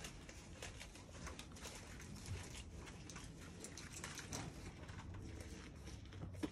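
Saanen-mix goat munching loquat leaves: faint, irregular crunching clicks as she chews, with one sharper click near the end.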